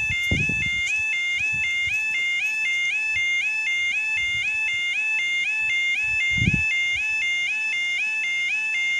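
A railway level crossing's audible warning alarm sounds continuously while the barriers are down, a repeating rising yelp of about two a second that warns a train is due. A brief low thud comes about six and a half seconds in.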